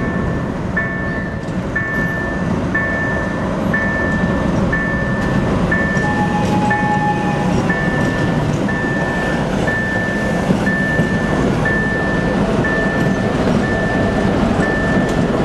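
ChME3 shunting locomotive's six-cylinder diesel running as it rolls past, under an electronic level-crossing warning signal beeping steadily about once a second. A short, steady higher tone sounds about six seconds in.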